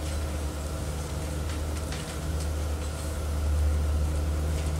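Steady low hum with faint hiss on an old cassette recording of a lecture, growing a little louder past the middle, with a few faint clicks.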